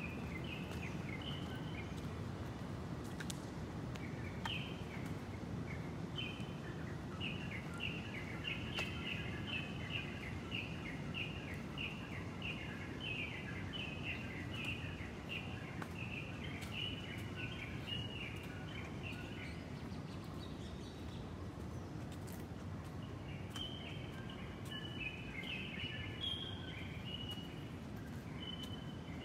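A long run of short, high chirps, about two a second, repeated over and over, stopping for a few seconds about two-thirds of the way through and then starting again, over a steady low outdoor background noise.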